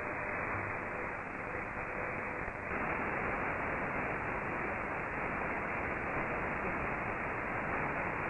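Static hiss from a FUNcube Dongle Pro Plus software-defined radio receiver in AM mode, with a faint steady tone underneath at first. About two and a half seconds in the hiss gets brighter and a little louder as the receiver is retuned to the 40 m ham band.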